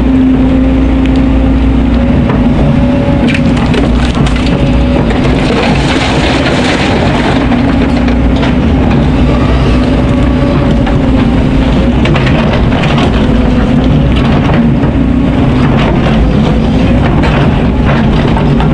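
Kobelco hydraulic excavator's diesel engine running steadily under load, heard from the cab, with scattered scraping and clattering of rock and sand as the bucket digs and dumps its load.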